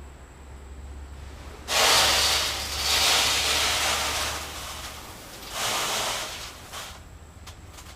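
Chicken feed poured from a sack into a barrel or bucket: a rushing hiss of grain, beginning almost two seconds in and running about three seconds, then a second, shorter pour.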